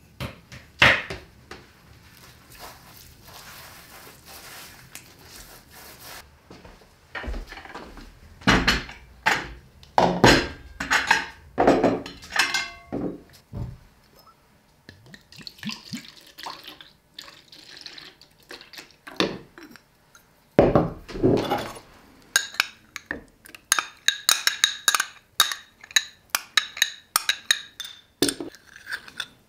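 Kitchen preparation sounds: knocks and clinks of a spoon, glassware and a bowl on a wooden table, with a dark sauce poured from a glass cruet into the bowl. Tomato paste is spooned in, with a run of quick, sharp clinks near the end.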